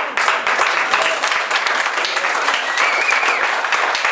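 Small audience applauding: a dense, steady patter of hand claps.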